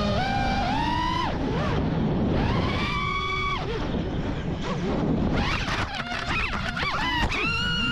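FPV racing quadcopter's brushless motors whining, the pitch rising and falling with throttle, then sweeping erratically up and down as the quad crashes and tumbles. About seven seconds in, the whine settles into a steady tone.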